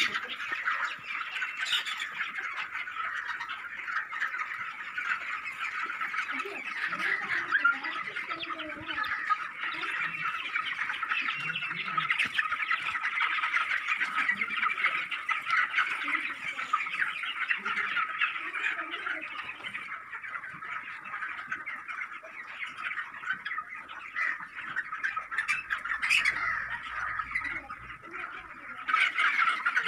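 A large flock of young broiler chickens chirping together in a continuous dense chorus, with a few sharper, louder calls standing out now and then.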